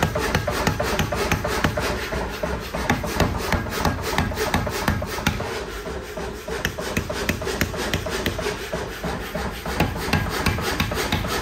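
Power hammer pounding a red-hot steel billet of forge-welded nails, a rapid steady run of blows that keeps on without a break.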